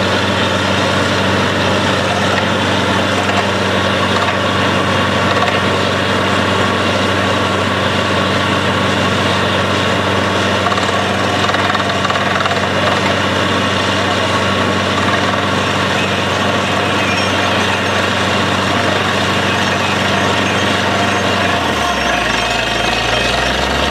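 Truck-mounted borewell drilling rig running steadily while drilling, its engine and drive giving a constant hum under a hissing, rattling din. About two seconds before the end the low hum drops in pitch.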